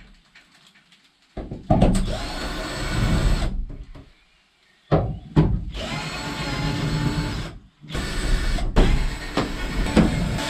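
A power drill running in three bursts of a few seconds each, with short pauses between them.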